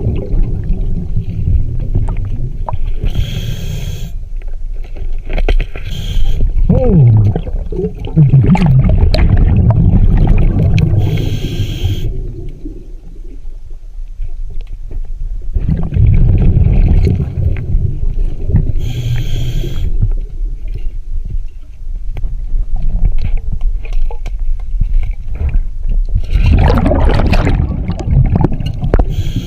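Scuba diver breathing through a regulator underwater: a short hiss on each inhale, then a long low rumble of exhaled bubbles, repeating as slow breaths every several seconds.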